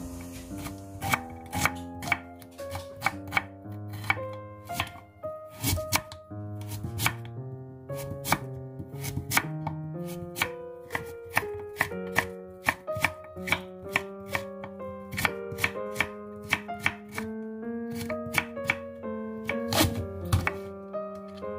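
Chef's knife cutting daikon radish and then thick green onion on a wooden cutting board: a run of sharp, unevenly paced knocks of the blade against the board, about two or three a second. Background music with a melody plays under it.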